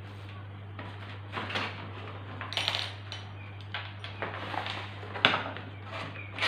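Foam model-airplane parts being handled and set down on a wooden tabletop: scattered light knocks, taps and scuffs, with one sharp click about five seconds in.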